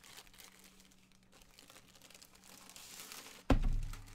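Plastic bag crinkling as a rolled diamond-painting canvas is slid out of it, building up over the first three seconds. Then comes one sudden thump, the loudest sound, as the canvas roll comes down on a wooden table.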